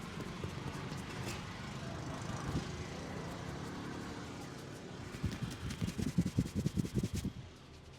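Quick rhythmic pats of a barber's hands on the head during an Indian head massage, about nine a second for roughly two seconds in the second half, over a steady rumble of street traffic.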